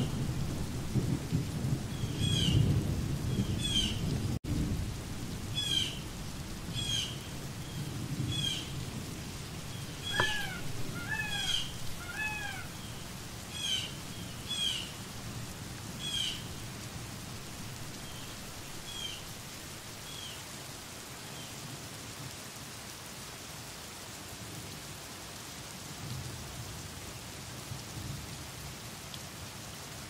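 Steady rain with low rolling thunder, strongest in the first few seconds and returning faintly near the end. Over it, an animal gives short high calls about once a second, thinning out after about twenty seconds, with three lower calls about ten to twelve seconds in.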